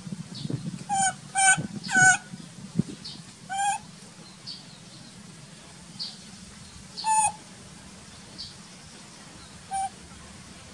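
Baby macaque crying with short high-pitched calls, four in quick succession in the first few seconds, then single cries spaced several seconds apart.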